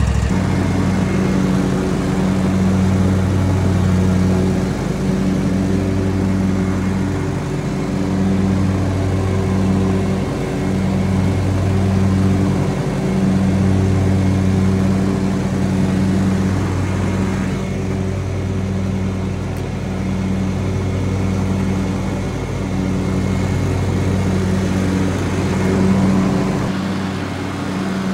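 John Deere X370 lawn tractor's engine running under load while mowing with the bagger fitted. A steady drone swells and dips every second or two. Near the end the deepest rumble drops away as the tractor comes to a stop.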